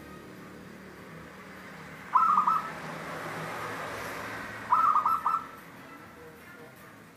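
Zebra dove (perkutut) cooing: two short phrases of several quick notes each, about two and a half seconds apart.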